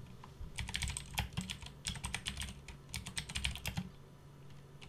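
Typing on a computer keyboard: three quick bursts of keystrokes as a short terminal command is entered.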